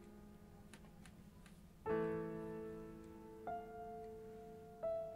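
Soft, slow solo piano music: a held chord fades away, a new chord is struck about two seconds in and rings on, and a single higher note is added twice after it.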